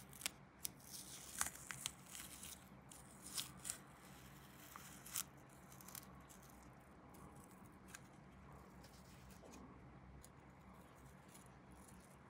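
Scattered light clicks, taps and short rustles of small plastic model-kit parts being handled and worked at a bench, busiest in the first five seconds and sparse after that, over a faint steady hum.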